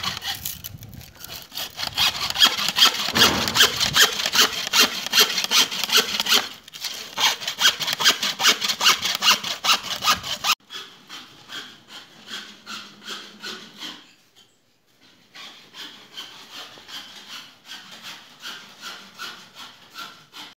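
A hand hacksaw cutting through a brown plastic pipe, rasping back and forth in steady strokes about two to three times a second. The sawing gets quieter about ten seconds in and stops briefly before going on.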